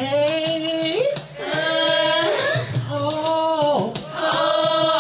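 A male lead singer and female backing singers sing four long held notes, each about a second, with short breaks between them; the pitch steps up near the end of the first note.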